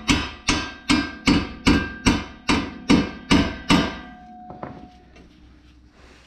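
Hammer striking a small steel punch driven into the Ford Fiesta's front spindle to spread it open and free the lower ball joint. About ten sharp metallic blows come at a steady two to three a second, each with a short ringing. They stop about four seconds in, and one lighter tap follows.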